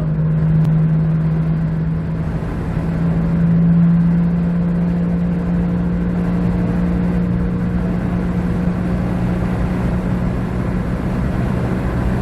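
2008 Jeep Compass on the move, with a steady hum from the front end over road rumble, its pitch rising slightly about three seconds in. The owner traces the hum to a bad right-side front wheel bearing.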